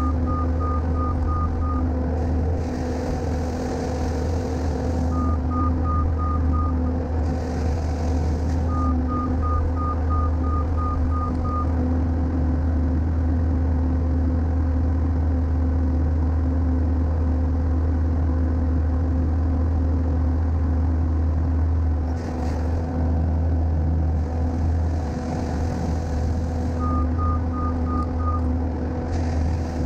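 Skid steer's diesel engine running steadily while it works, with its reverse alarm beeping in short runs of about three beeps a second: at the start, about five and nine seconds in (the longest run, about three seconds), and near the end.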